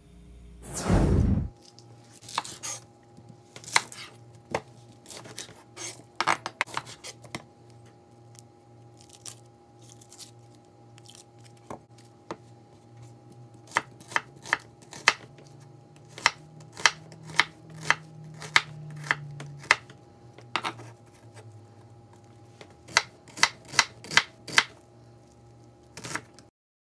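Chef's knife chopping an onion on a wooden cutting board: sharp knife strikes, scattered at first and later in quick runs of taps. A loud low thump about a second in.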